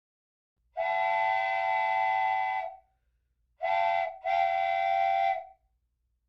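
A whistle sounding three steady, pitched blasts: a long one, a short one, then another long one.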